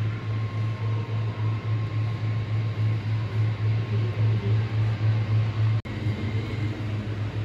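H0-scale model railway running, a loud low rumble that pulses about two to three times a second, with a faint steady whine above it. It breaks off for an instant nearly six seconds in, then carries on.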